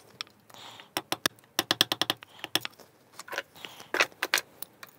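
A run of small, sharp clicks and clatters from small hard objects being handled in a workshop, dense for about a second near the middle of the clip.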